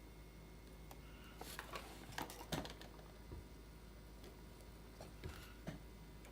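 Light clicks and taps of small chainsaw parts and hand tools being handled during assembly: a quick cluster about a second and a half in, and a few more near the end.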